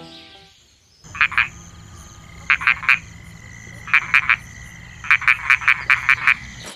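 Frog croaking: short calls in groups of three, then a quicker run of about eight calls near the end.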